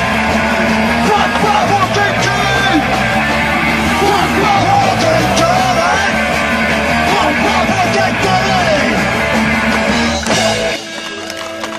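Punk rock music: a band playing guitar and drums with sung and yelled vocals, breaking off suddenly near the end.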